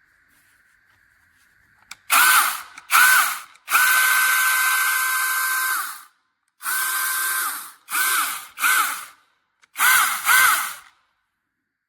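Battery-powered 6-inch brushless mini chainsaw triggered in a series of short bursts, its motor and chain whining up in pitch and back down each time. About four seconds in it runs at a steady pitch for about two seconds.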